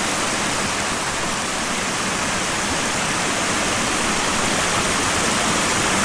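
Small waterfalls and a rocky stream cascading over boulders close by: a steady rushing of falling water.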